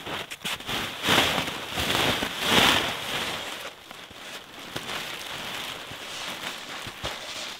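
Nylon fabric of a Pomoly LEO 2 hot tent rustling as it is pulled from its bag and unrolled across the snow. There are two loud swishes, about one and two and a half seconds in, then softer rustling.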